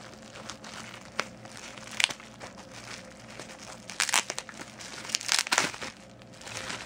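Packaging crinkling and rustling in short, scattered bursts as a smartphone is unwrapped from its box, with the loudest crinkles about four seconds in and again around five and a half seconds in.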